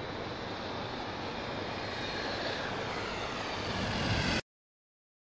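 Steady rushing outdoor noise that grows a little louder and then cuts off abruptly about four and a half seconds in.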